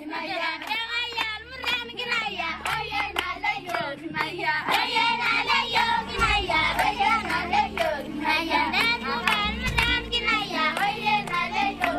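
A group of children singing together, with hand claps keeping a steady beat.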